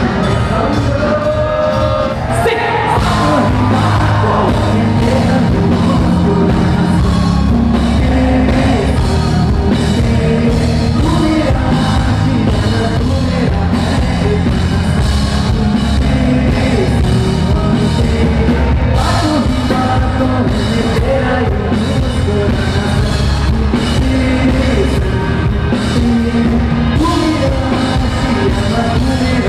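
Loud live music played over a PA: a singer over an amplified backing track with drums, continuing steadily.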